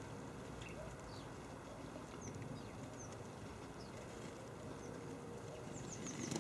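Small garden birds at a feeder giving scattered short, high chirps over a steady low background hum, with a quick run of chirps and a sharp tap near the end.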